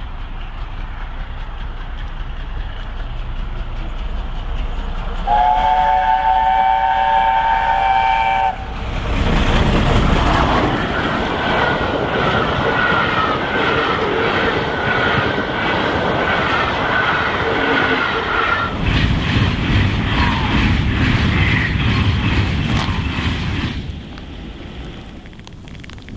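LNER A4 Pacific steam locomotive sounding its chime whistle, a chord held for about three seconds. It then rushes past at speed with its exhaust and the clatter of its coaches, and the noise drops away near the end.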